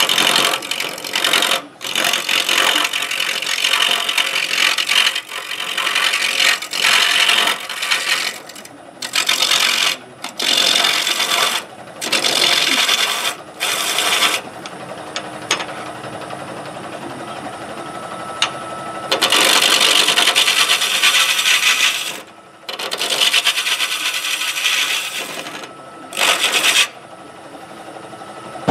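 A gouge cutting into a wooden blank spinning on a lathe, rounding it over: a rough scraping in repeated passes of one to three seconds, broken by short pauses. In a longer pause midway, only the lathe running is heard.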